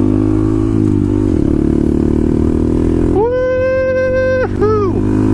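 A 2015 Honda Grom's 125 cc single-cylinder engine with an aftermarket exhaust, heard from the rider's seat pulling along the road. Its pitch dips and climbs again just over a second in. In the last half there is a long held high tone, then a short arching one, like a drawn-out vocal "woo" over the engine.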